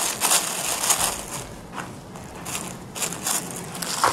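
Thin clear plastic packaging crinkling and crackling in the hands in irregular bursts as a small pocket microscope is unwrapped.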